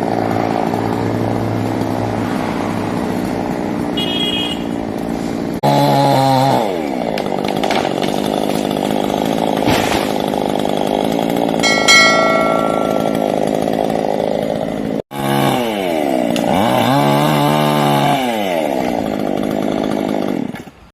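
Chainsaw running hard while cutting wood, its engine pitch sagging and climbing back as the chain bites into the cut and frees up. The sound drops out for an instant about fifteen seconds in, and a short high tone sounds briefly near the middle.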